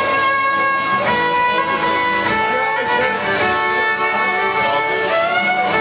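Fiddle playing a tune, with acoustic guitar accompaniment.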